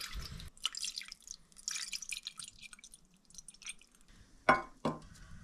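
Spring water poured from a bottle into a metal pot, splashing and trickling, then tapering off. Two short knocks follow near the end.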